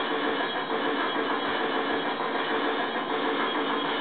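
Homemade electronic music track made in Fruity Loops (FL Studio) playing from a laptop, a steady sound of several held tones over a dense buzz.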